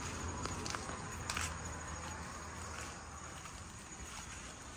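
Insects keeping up a steady high, continuous buzz over a rural background, with a few faint scattered clicks or rustles.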